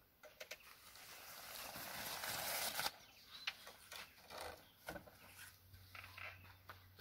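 Canvas of a Rhino Rack Batwing awning rustling and swishing as a wing is swung open, swelling for about two seconds and stopping abruptly about three seconds in, followed by faint taps and footsteps.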